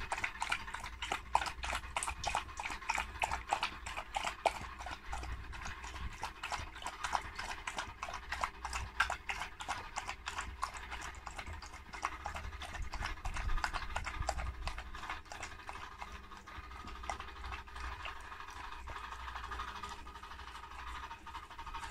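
A Border collie lapping liquid from a stainless steel bowl, a steady run of quick wet laps at about four a second.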